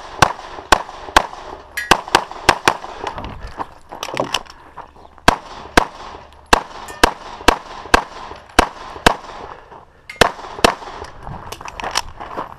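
CZ 75 SP-01 9mm pistol fired rapidly through a stage, about two dozen sharp shots in quick pairs and short strings with brief breaks between them.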